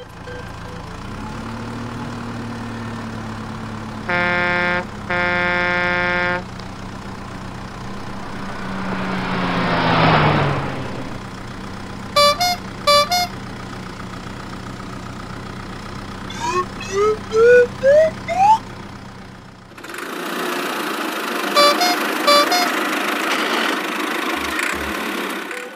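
Vehicle sound effects: a steady engine hum with two long horn honks about four seconds in. A whoosh swells and falls away near ten seconds, followed by a few short beeps and a run of five quick rising glides. The last few seconds are a hissing noise with more beeps.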